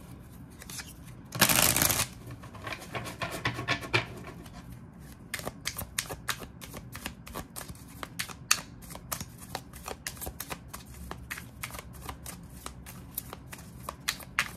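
A large tarot card deck being shuffled by hand: a quick run of soft card clicks and flicks, denser in the second half. There is a louder rush of noise about a second and a half in.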